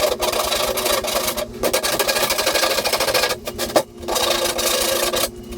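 Hand file rasping across hardened, melted-in plastic patches on a sled hull, knocking down the high spots in quick back-and-forth strokes. The filing pauses briefly twice and stops near the end.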